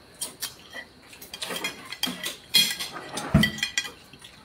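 Spoons and plates clinking as people eat at a table: scattered small clinks and scrapes, with a dull thump about three and a half seconds in.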